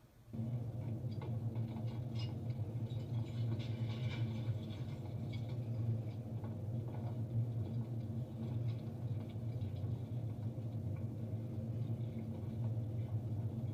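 A steady low hum, with faint high-pitched chirps scattered through the first half.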